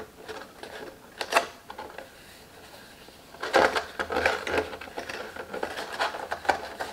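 Stiff cardstock rustling and crackling as hands press and shift a glued paper roof into shape, with scattered light clicks and taps. Brief at first, then busier from about halfway through.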